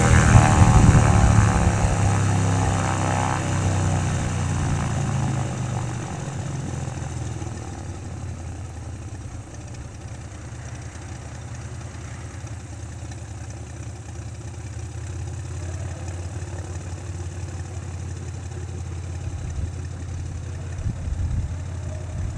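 Piston engine and propeller of a single-engine light aircraft running on the ground, dropping in pitch and loudness over the first several seconds as it slows to a steady idle.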